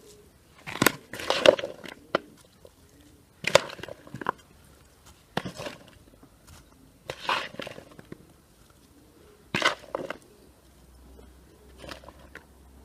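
Chopped raw vegetables (tomato, pepper, onion) tipped from a plastic bowl onto a bed of herbs in a dough-lined pot, landing in a series of short rustling, crunching bursts about every two seconds.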